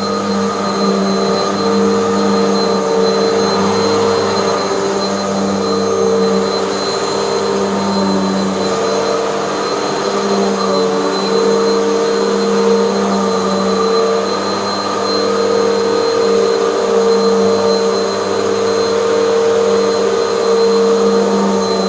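Bagless Hoover upright vacuum cleaner running on carpet: a steady motor hum with a thin high whine over airflow hiss, its level swelling and dipping slightly.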